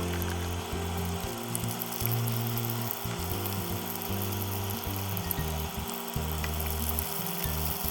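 Food sizzling and crackling in hot oil in a pan, over background music with changing low notes.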